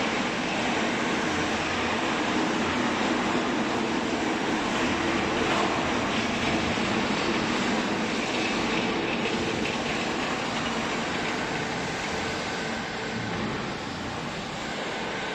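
Vertical hydraulic baler's power unit running steadily: a dense mechanical hum and rush from its motor and hydraulic pump, easing slightly near the end.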